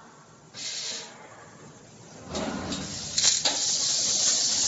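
Fiber laser cutting machine's head blowing assist gas as it cuts stainless steel sheet, heard as a hiss. A short hiss comes about half a second in, then a loud steady hiss starts a little past two seconds in, loudest around three seconds.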